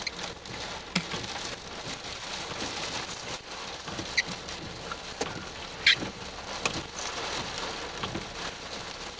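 Rain falling and pattering as a steady hiss, with a few sharp ticks of drops striking; the loudest tick comes about six seconds in.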